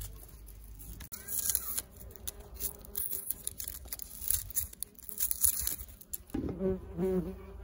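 Kitchen knife scraping and cutting the dry papery skin off an onion: a run of irregular scratchy, crackly strokes. A short buzz comes in near the end.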